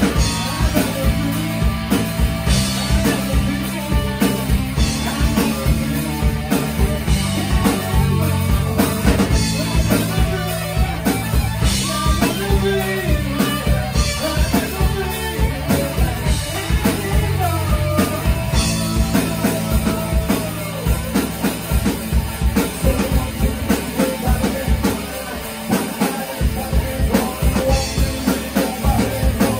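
Live rock band playing: drum kit, bass and electric guitar, with a man singing into a microphone. About 25 seconds in, the bass drops out for a moment before the full band comes back.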